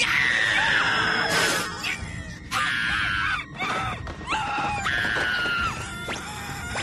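High-pitched cartoon screaming: three long shrieks, each sliding slightly down in pitch, the first the loudest, with crashing and thudding impacts between them.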